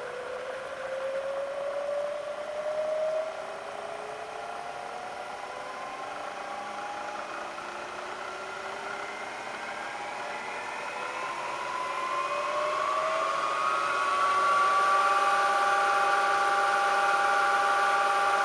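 Bridgeport Series I variable-speed milling head running, its whine gliding upward in pitch as the speed handwheel is turned up. It then holds at one steady, louder pitch for the last few seconds.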